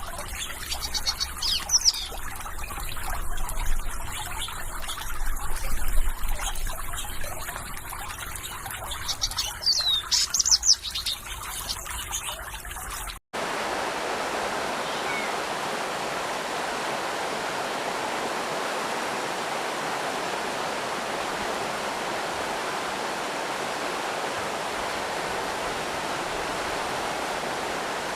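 Small birds chirping over trickling water, then a sudden cut about halfway through to the steady rush of a stream or small waterfall, with almost no bird calls.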